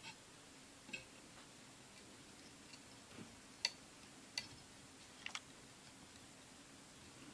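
Scattered light clicks and taps, about six at irregular intervals, the sharpest about three and a half seconds in, over a faint steady hum.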